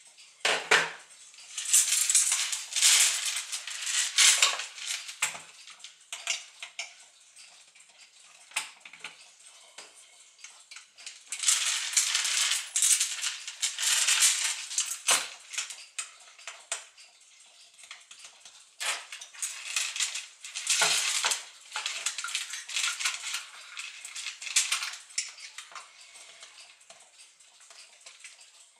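Small brass and steel parts of a Gustav Becker clock movement clinking and rattling as it is taken apart by hand. The clicks and jingles come in several bursts with quieter gaps between them.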